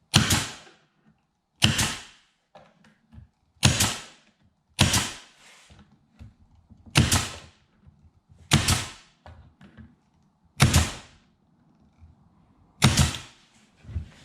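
Nail gun driving nails into wooden shelving: eight sharp single shots spaced about one to two seconds apart.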